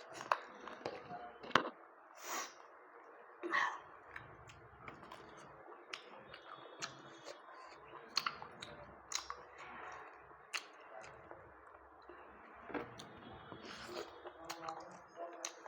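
A person eating close to the microphone: irregular chewing with wet mouth clicks and smacks, and a few louder crunchy bites.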